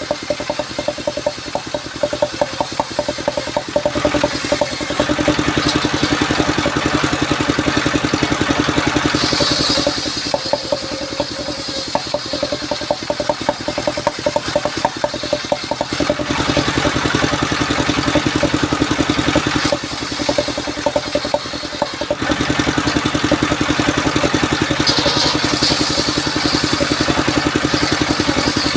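Engine-driven mobile circular sawmill running, its large round blade ripping sengon (albasia) wood into rafters, with the engine's rapid, even firing pulses under the sawing. The noise swells louder a few seconds in and again near the end as the blade works through the wood.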